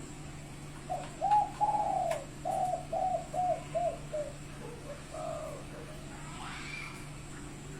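Spotted dove (derkuku) cooing: a phrase of arched coos, the first ones longest and loudest, then a run of shorter, quicker repeated 'kuk' notes that fades out, with one more coo a second later.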